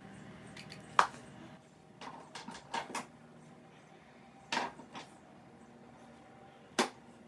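Makeup items being handled at a table: a handful of sharp clicks and taps, the loudest about a second in and a quick cluster a little after, over a faint steady hum.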